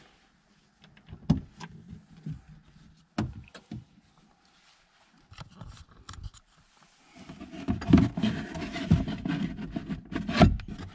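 Hands opening the hinged lid of a rear-deck storage compartment in a 1971 Corvette, with a few sharp clicks and knocks, then rummaging in the plastic tray with rubbing and clunking, two knocks louder than the rest, as an item inside is worked loose.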